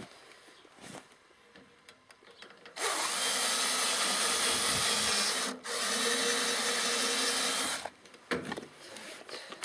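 Power drill boring holes: it runs for about five seconds, stopping briefly in the middle and starting again, with a few light knocks of handling before and after.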